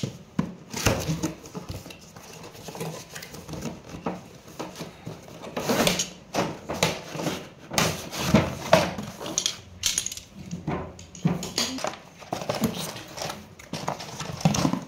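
Cardboard toy box being handled and opened by hand: irregular knocks, scrapes and rustles of the cardboard and the plastic toy inside.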